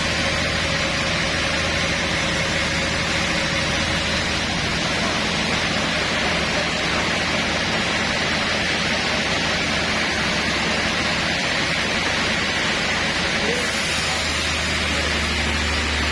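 Sawmill machinery running steadily: a constant loud mechanical noise with a low hum underneath, unchanging throughout.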